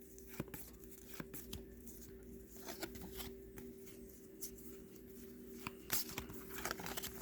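Trading-card packs being opened and the cards flipped through by hand: a quiet run of short clicks, slides and rustles, over a faint steady hum.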